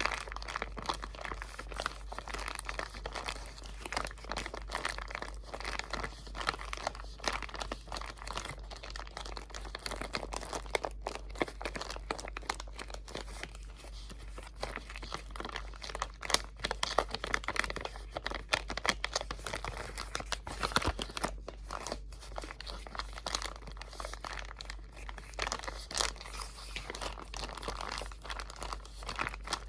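Close-miked crinkling: crinkly material crumpled and handled without pause, a dense run of sharp crackles, over a steady low hum.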